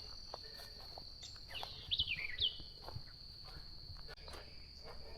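Steady high insect trill in the woods, with a bird giving a few quick falling chirps about two seconds in and light footsteps on the trail.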